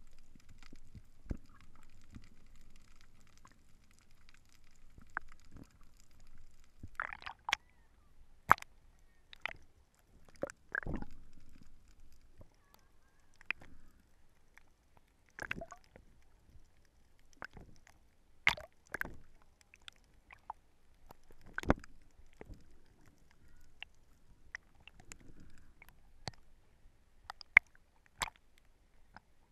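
Muffled underwater sound picked up by a GoPro in its waterproof housing: a low water rumble with irregular sharp clicks and knocks every second or two.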